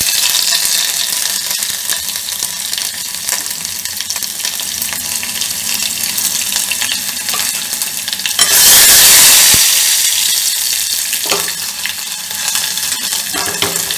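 Hot oil sizzling and crackling as crushed fennel and garlic fry in a tempering of mustard seeds and urad dal. About two-thirds of the way through the sizzle grows suddenly louder and brighter, then fades back over a second or two.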